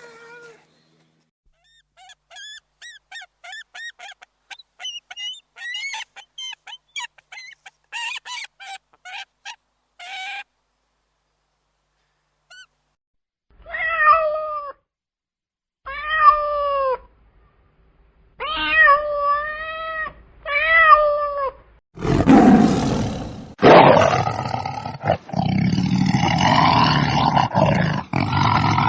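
A cat meowing: first a quick run of short, high mews, then four longer meows that fall in pitch. Near the end a loud, rough animal call takes over.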